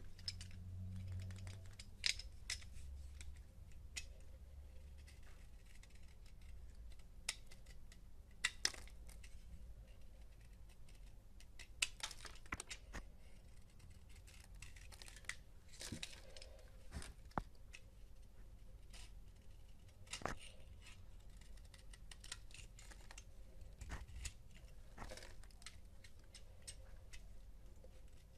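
A utility knife blade scraping and cutting into a bar of soap: irregular, crisp scratching strokes and small clicks as shavings come away.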